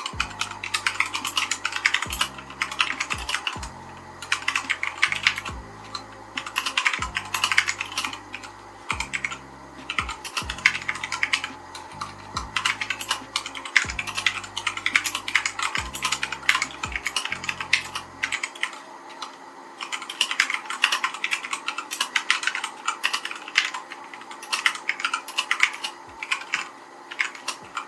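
Typing on a Keychron K2 version 2 clone, a 75% mechanical keyboard with Gateron Brown switches, Cherry-profile keycaps and a plastic case: a fast, steady run of keystroke clacks with brief pauses.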